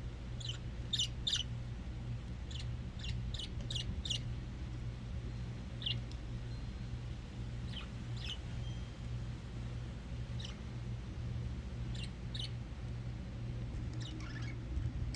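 Pet budgerigars chirping in short, sharp calls, a quick flurry in the first few seconds and then scattered single chirps, over a steady low hum.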